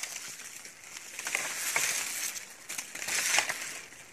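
Dry bamboo leaves and stems rustling and crackling, with scattered small snaps and ticks.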